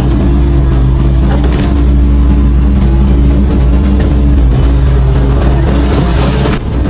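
A heavy machine's engine running at a steady speed, mixed with background music.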